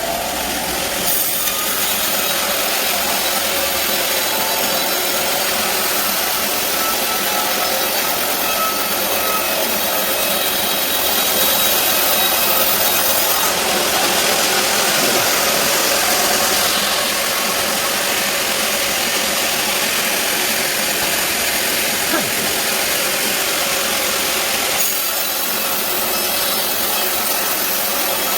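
Band sawmill cutting lengthwise through a large teak log, a steady loud sawing noise whose high hiss grows and fades a few times as the cut goes on.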